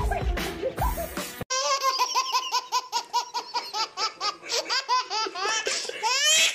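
A baby's belly laughter, starting about one and a half seconds in: a quick run of short laughs, one after another, climbing higher in pitch near the end.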